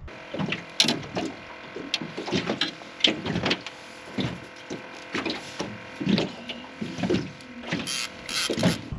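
Irregular creaks and clicks from a fishing rod and reel being worked while a striped bass is reeled in.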